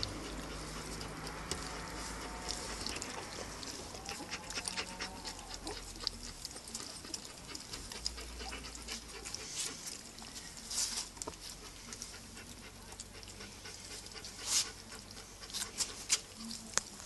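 Two-week-old puppies eating soft food from a shared dish during their first supplementary feeding: scattered wet smacking and lapping clicks, thicker in the second half, with a few faint high whimpers in the first five seconds.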